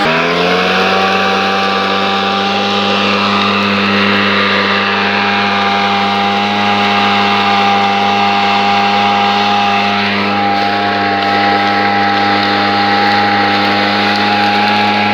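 Engine of an olive ground-collecting machine running steadily. Its pitch dips right at the start and climbs back within about a second.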